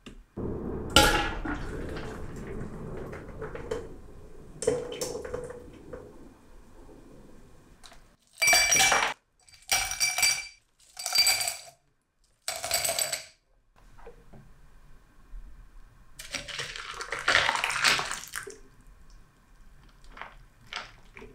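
Ice cubes dropped into a tall drinking glass in four clinking bursts of ice on glass, then blended strawberry lemonade poured over the ice for about two seconds. Near the start a loud knock is followed by a fading clatter.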